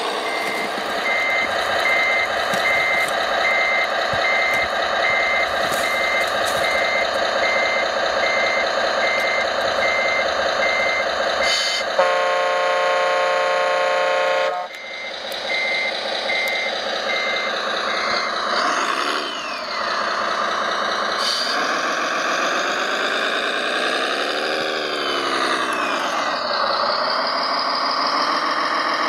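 Electronic sound module of a radio-controlled mining dump truck: a simulated diesel engine running under reversing beeps of about one and a half a second. Partway through comes a horn blast of about three seconds, then more beeps, then the engine revs up and down several times.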